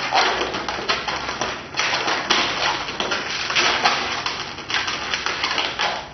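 Inflated 260 latex twisting balloons rubbing and squeaking against each other as one balloon is wrapped around another, a dense, rapid crackle of squeaks and clicks.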